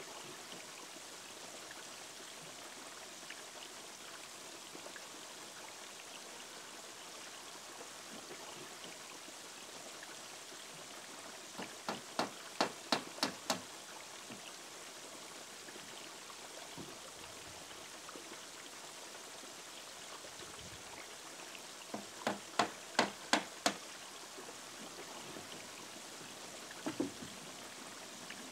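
Claw hammer driving nails into a wooden roof-edge board: two runs of about seven quick blows each, the second some ten seconds after the first, and a couple more knocks near the end. Under them, a steady trickle of running water.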